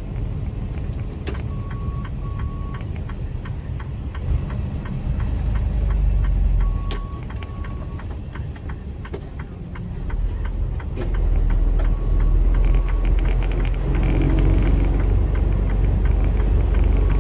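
Mercedes Actros lorry engine running, heard from inside the cab, pulling harder about five seconds in and again from about eleven seconds on. Pairs of short beeps sound three times, roughly five seconds apart.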